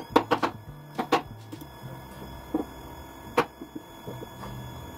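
Claw hammer driving nails into a plywood chair frame: sharp, ringing blows, several in quick succession at the start, then a couple about a second in and single blows later.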